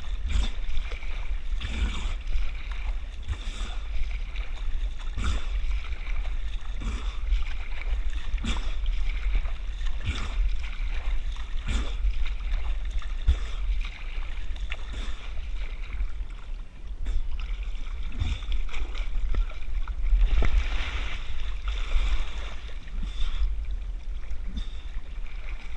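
Water splashing in a steady rhythm, a stroke about every one and a half to two seconds, as a person moves across a river, heard close up through a head-mounted action camera with a constant low rumble.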